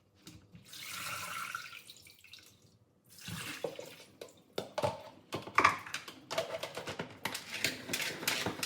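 Tap water running and splashing as liver pieces are rinsed in a salad spinner, with a short pause and then repeated clattering knocks and splashes in the second half.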